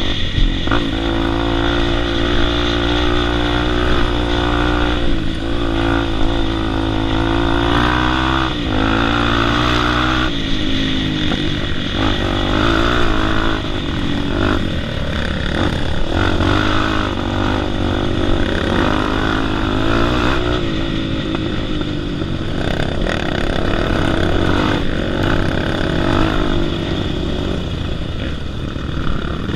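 Single-cylinder four-stroke trail motorcycle engine running under way, heard close up from the rider's helmet. Its pitch rises and falls with the throttle and drops suddenly a few times, over steady wind noise.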